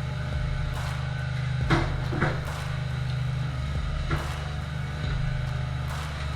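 Firewood processor's engine running steadily, with several sharp knocks and clunks from the machine handling wood, about a second in, twice near two seconds, and again near four and six seconds.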